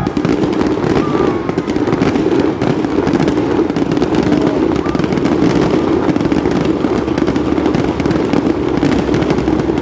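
Fireworks exploding in a dense, continuous barrage of rapid bangs and crackles, with no break.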